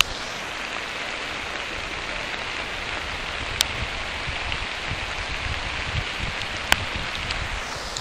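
Steady thunderstorm rain falling, with a couple of sharp ticks of drops striking close by, near the middle and about two-thirds through.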